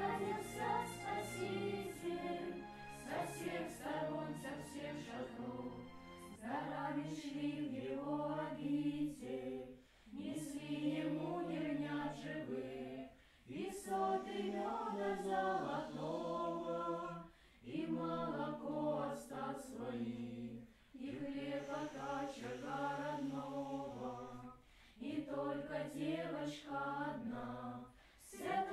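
A choir singing unaccompanied, in phrases of a few seconds each separated by brief pauses.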